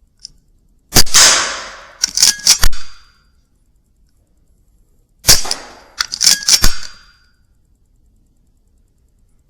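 Two shots from a Weihrauch HW100 .22 air rifle, about four seconds apart, each a sharp crack with a short fading tail. About a second after each shot comes a quick run of three or four metallic clicks.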